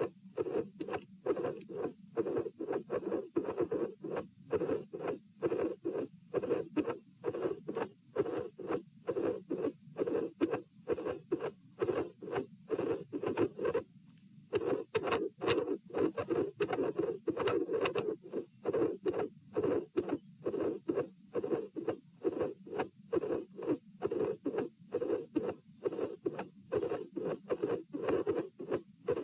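Heartbeat heard through a stethoscope over the pulmonic area: a steady run of lub-dub thuds with one longer pause about halfway through. The recording is of an irregular rhythm with premature atrial and ventricular contractions, in a heart with a dilated aortic root.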